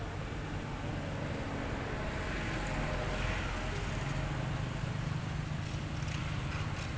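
Steady low drone of a running motor engine, swelling slightly about three seconds in.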